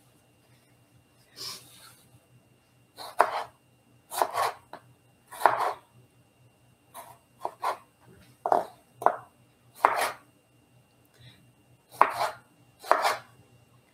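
Large chef knife slicing through tomatoes and knocking on a polypropylene cutting board. About a dozen irregular cuts, roughly one a second, starting about a second and a half in.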